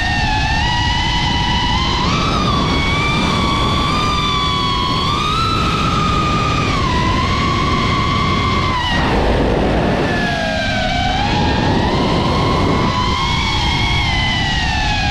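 Racing quadcopter's electric motors and propellers with a high whine whose pitch rises and falls with the throttle. About nine seconds in the whine drops and a rush of air noise comes in briefly, then the pitch climbs again.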